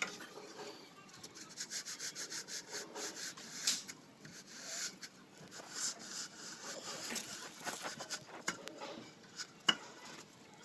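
A hand plastering tool rubbing and scraping over cement plaster on a wall, in repeated quick strokes.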